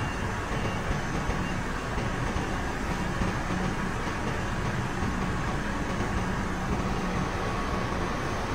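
Grove TM1500 truck crane's diesel engine running steadily, with a low hum.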